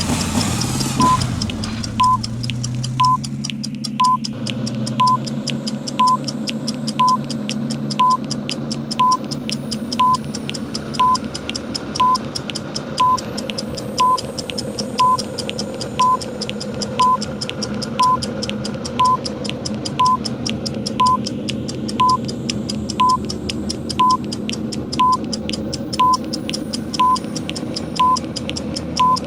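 Countdown timer sound effects: a short electronic beep once a second over rapid clock ticking, with a steady engine drone running underneath.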